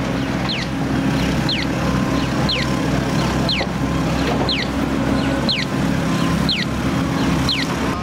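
Steady engine and traffic rumble, with a short, high, falling chirp repeating about once a second.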